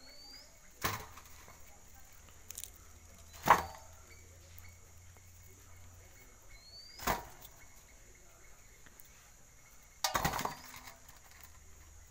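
Roasted palmyra palm fruits set down one after another into a stainless steel plate: a few separate knocks, the loudest about three and a half seconds in, and a quick rattle of several knocks near the end.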